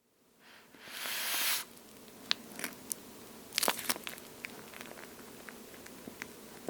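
Close-up handling of a water-feel squishy toast squeeze toy. There is a short rustle about a second in, then scattered light crackles and clicks.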